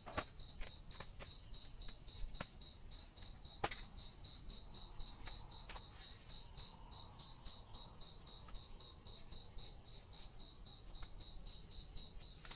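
A cricket chirping steadily, about four even chirps a second at a high pitch, with a few scattered sharp clicks or snaps, the loudest about a third of the way in.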